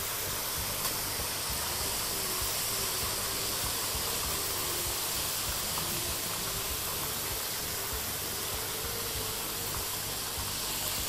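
Flour-coated fish fillets frying in hot oil in a deep pot: a steady sizzling hiss.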